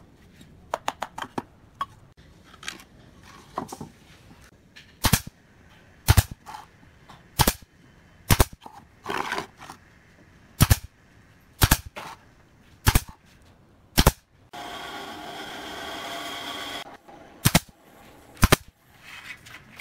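Pneumatic nail gun firing nails into pallet wood: about ten sharp shots, roughly one a second, with a pause of a few seconds partway through. Light wooden clicks and knocks come near the start as the blocks are fitted. A steady sound lasting about two seconds falls between two of the later shots.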